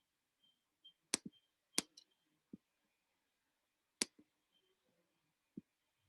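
Computer mouse clicking: three sharp clicks about one, two and four seconds in, with a few fainter taps between them.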